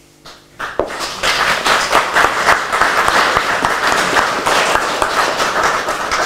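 Audience applauding, a dense patter of many hands clapping that starts about half a second in and stops just before the end.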